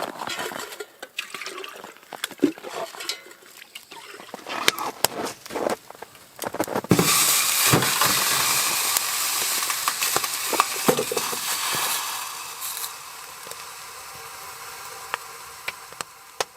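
Scraping and knocking at a snow-covered watering hole in lake ice, then water rushing from about seven seconds in, strong for a few seconds and tapering away as a container is filled from the hole.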